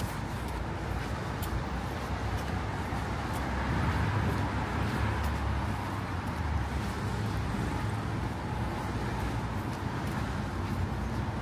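Road traffic: passing vehicles with a steady low engine rumble and tyre noise, swelling about four to six seconds in.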